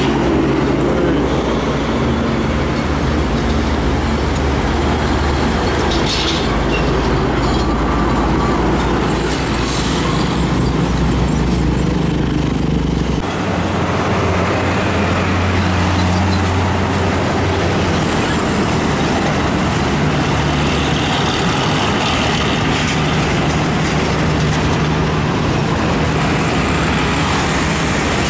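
Heavy diesel cargo trucks running close by on a busy road, their engines a steady low drone over traffic noise. The sound changes abruptly about halfway through.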